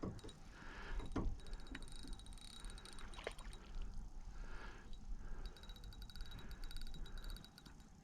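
Fishing reel on an ultralight rod being wound in while a fish is on the line: runs of fine rapid clicking from the reel, with a couple of sharper knocks over a low rumble.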